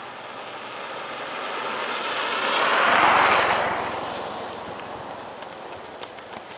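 A road vehicle driving past, its tyre and engine noise swelling to a peak about halfway through and then fading away.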